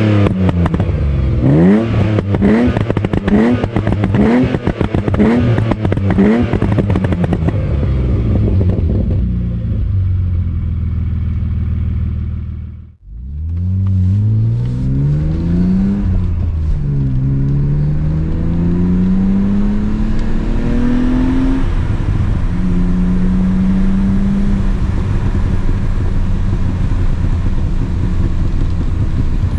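BMW E36 328i's M52B28 2.8-litre inline-six being blipped repeatedly, about one rev a second, with rapid exhaust pops and crackles on each overrun from a tuned pop-and-bang map, then settling to idle. After a brief drop-out, it is revved more slowly, with one long climb held for a moment, and returns to a steady idle.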